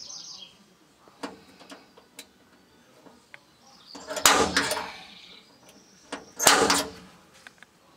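Handling knocks in a pickup bed while a cargo-box side pod is marked for drilling: a few light clicks, then two louder sharp clattering knocks about two seconds apart.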